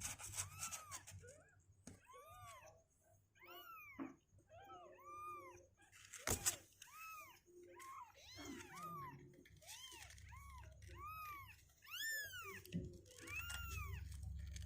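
Two-week-old kittens mewing over and over, thin high-pitched calls that each rise and fall in pitch, one or two a second and sometimes overlapping. A single sharp click about six seconds in.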